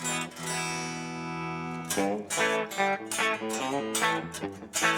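Electric guitar played through the DVII tube amp, recorded through a load box with a cabinet impulse response. A chord is struck and left to ring for about two seconds, then a quicker run of picked notes and short chords follows.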